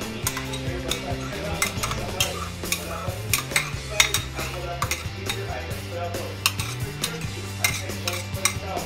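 A metal spoon scraping and clinking repeatedly against a glass bowl and a metal wok as sauce is scooped into the pan, in sharp, irregular clicks.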